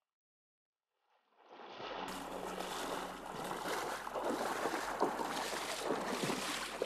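Waders splashing and sloshing through shallow river water, close by, starting about a second and a half in after near silence.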